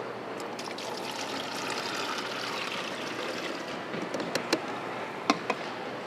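Liquid poured from two beakers into a large plastic tub, splashing and trickling. Near the end come a few sharp clicks.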